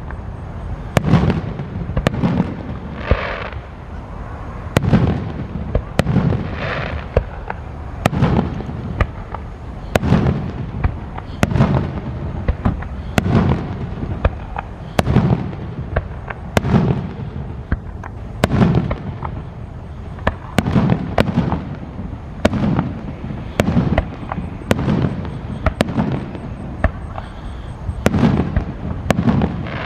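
Aerial fireworks shells bursting in quick succession, a sharp crack and a rumbling boom every second or two, with a few whistling streaks among them.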